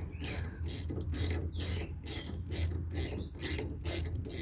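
Hand ratchet tightening a rusty brake caliper bolt: a steady run of raspy ratchet strokes, a little over two a second.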